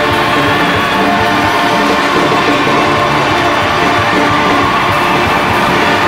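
A school youth orchestra of strings, harp, woodwinds and brass playing the loud closing bars of a finale.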